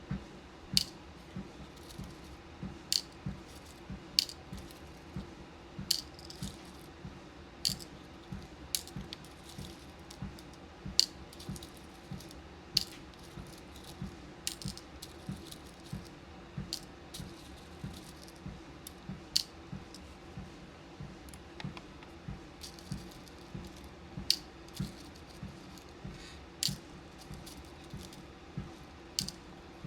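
Small beads and pins clicking and rattling as they are picked up and sorted, in irregular sharp clicks a second or two apart. Underneath runs the steady hum of a walking pad with soft, regular footfalls on its belt.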